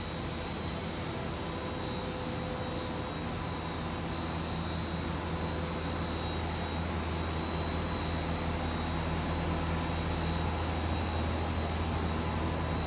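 Steady hum with a high hiss from a powered-up Okuma Simulturn LU-400 CNC turning center standing idle, holding level throughout.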